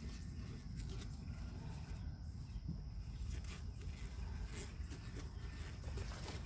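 Faint outdoor background: a steady low rumble with a few soft clicks.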